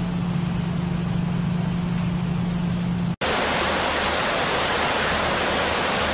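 A steady noisy rush with a low hum, then after an abrupt cut about three seconds in, the louder rushing of floodwater surging down a street in waves.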